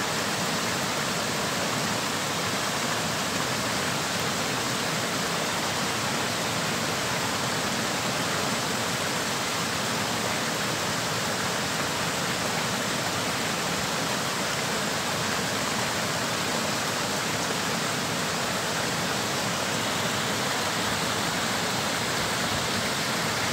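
Steady rushing of water flowing along a shallow concrete canal and spilling over its low concrete edge in small cascades.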